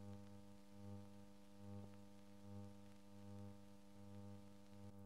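Near silence: a faint, steady low hum on an old film soundtrack, swelling gently about once a second, with a couple of faint clicks.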